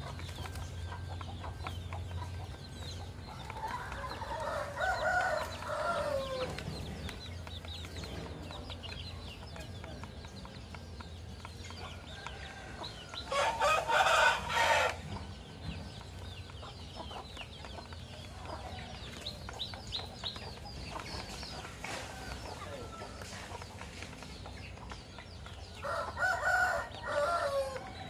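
Rooster crowing three times, each crow about two to three seconds long and about ten seconds apart, the middle one the loudest. Chickens cluck faintly in between.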